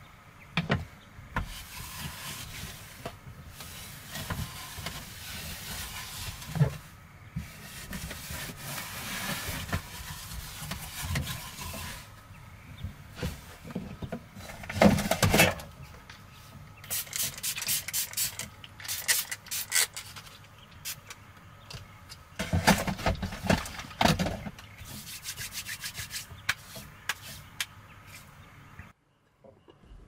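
Plastic wrapping rustling and crinkling as it is handled, with bunches of clicks and knocks from plastic containers and a bottle handled on a wooden table; the sound stops abruptly near the end.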